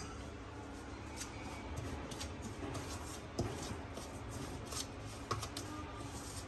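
Metal spoon stirring dry spice powders and oil in a stainless steel bowl: soft gritty scraping against the bowl, with a few light clinks.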